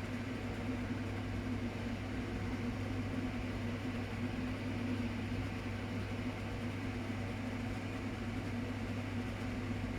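Steady hum of a running kitchen appliance.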